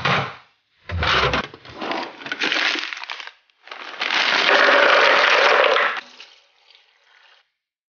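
Kitchen food prep at a plastic Nutribullet blender jug: a knock about a second in, then rattling clatter as ingredients are tipped in from a bag, then a steady rush of tap water filling the jug for about two seconds before it fades.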